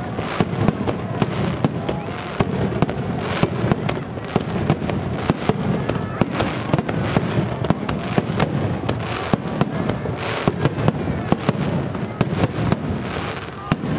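Aerial firework shells bursting in quick succession: many sharp bangs, several a second, over a continuous low rumble from the barrage.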